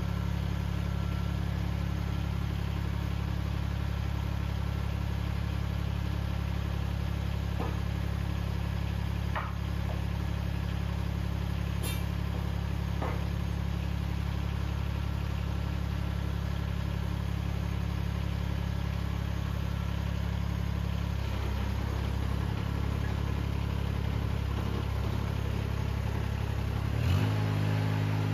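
Mini excavator's diesel engine running steadily at low speed, with a few light clicks. Near the end the engine note changes and rises in pitch as the engine speeds up.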